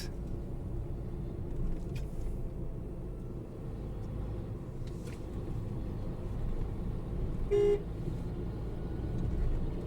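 Tata Altroz's three-cylinder naturally aspirated petrol engine and road noise droning steadily inside the cabin while driving, with the faint left-side noise that the owner blames on the air filter. A short car horn toot sounds about seven and a half seconds in.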